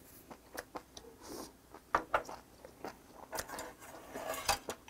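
Close-up chewing of a hot mouthful of blanched bird cockle and spinach: wet mouth clicks and smacks, with soft huffs of breath blown out to cool the food, busiest in the last second or so.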